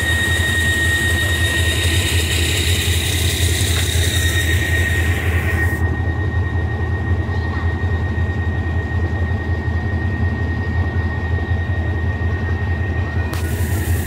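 GE diesel-electric locomotive No. 4023 idling, a steady low engine drone with a thin steady high whine over it.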